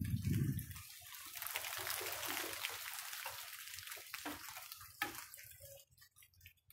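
A dull low thump at the start, then a wet hiss of rain and splashing water that swells and fades over about four seconds, with scattered drip ticks.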